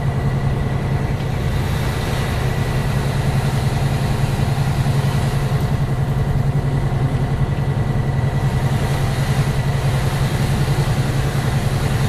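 Truck engine running steadily at low revs, a constant low hum with no revving, heard from inside the cab with a faint steady high whine over it.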